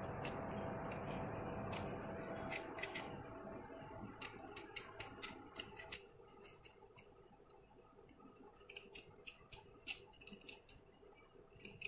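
Kitchen knife slicing the green skin off watermelon rind: a run of short, crisp, irregular cutting clicks over a faint steady hiss that dies away about halfway through.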